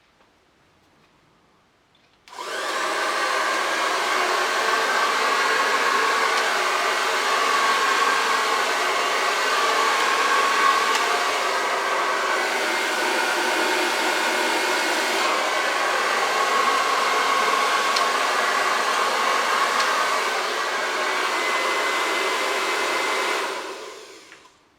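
Hair dryer switched on about two seconds in, running steadily for some twenty seconds, then switched off near the end.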